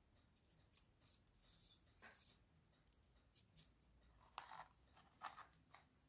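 Near silence with faint handling noises: a brief light scratching about a second in, then a few soft clicks later on.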